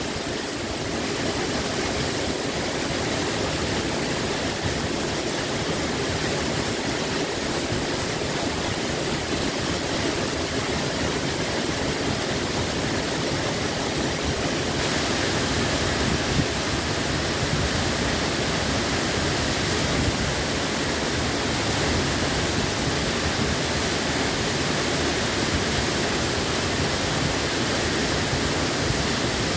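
Huibang Falls, a tall mountain waterfall, plunging steadily into a rock pool: an even, unbroken rush of falling water.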